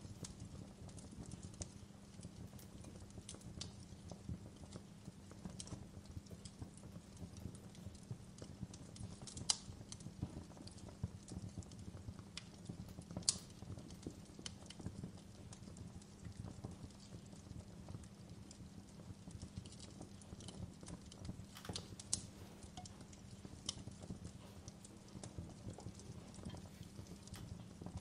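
Typing on a laptop keyboard: a run of soft, irregular key clicks with a few sharper clicks, over a steady low rumble.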